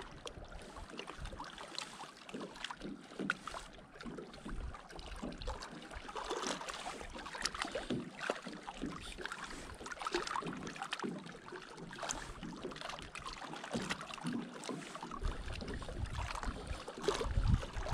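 Water lapping and splashing lightly in small irregular slaps, with low rumbles of wind on the microphone near the end.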